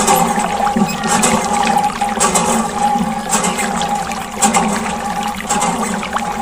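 Water gushing and splashing steadily from a small homemade water pump, over a steady hum.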